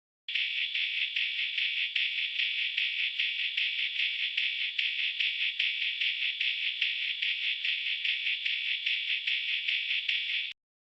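Music leaking from headphones, heard as a thin, tinny treble with no bass and a steady rhythmic pulse. It starts just after the opening and cuts off abruptly near the end.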